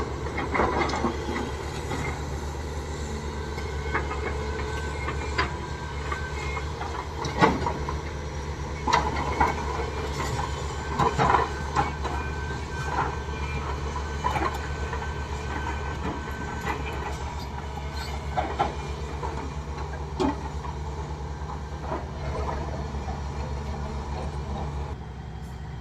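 Heavy diesel earthmoving machine running steadily, with irregular metallic clanks and knocks over the engine hum; the engine drops lower near the end.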